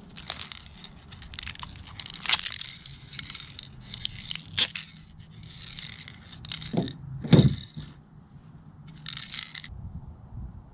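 Small black plastic rod-holder parts handled and turned over in the hands: irregular scraping and crinkling with a few sharper plastic clicks.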